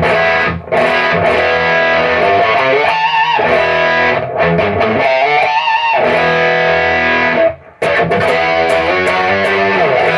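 Electric guitar played through the REVV Northern Mauler high-gain pedal, blended fully to its Revv circuit with the gain at about noon. It plays a heavily distorted riff of held chords with a couple of short breaks, and wavering bent notes in the middle.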